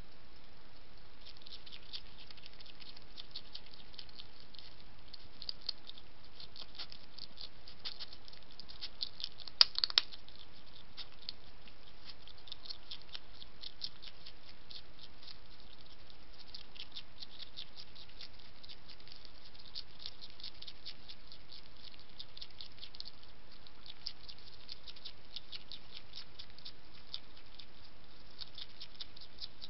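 European hedgehog crunching dry kitten biscuits: rapid runs of sharp little clicks in bursts, with one louder crack about ten seconds in.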